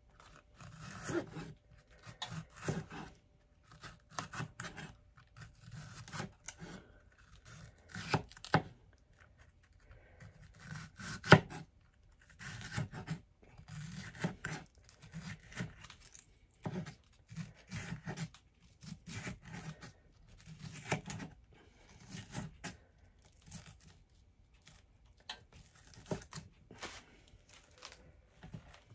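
Chef's knife slicing a green bell pepper into strips on a wooden cutting board: an irregular series of crisp, crunchy cuts, each ending in a dull knock of the blade on the board, with one sharper knock a little before halfway.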